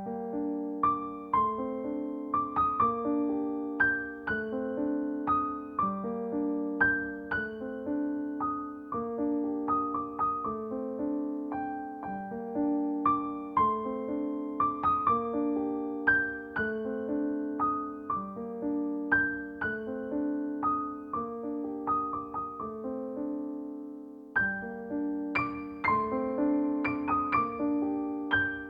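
Soft, slow solo piano music: a gentle repeating pattern of sustained notes and chords.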